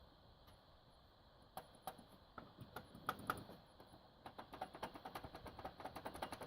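Drive-bay trays of a Cooler Master CM 690 III PC case clicking and rattling in their guides. Scattered single clicks come first, then a fast run of clicking starts about four seconds in. The loose trays probably make the hard drives' noise louder.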